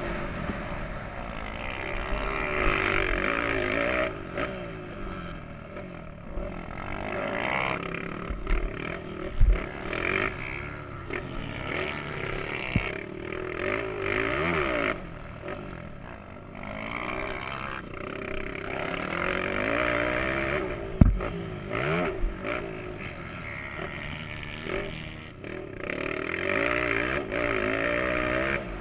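Motocross bike engine heard from onboard, revving hard: the pitch repeatedly climbs and drops as the throttle opens and shuts through the gears. Two sharp thumps stand out, about nine and twenty-one seconds in.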